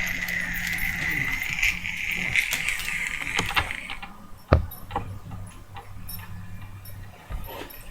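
A person hiccuping, with one sharp, loud hiccup about halfway through, over a steady high hiss that stops just before it.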